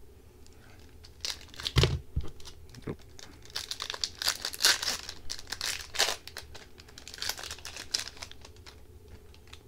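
Foil wrapper of an Upper Deck hockey card pack being torn open and crinkled, then rustling as the cards are pulled out. There is a soft thump about two seconds in.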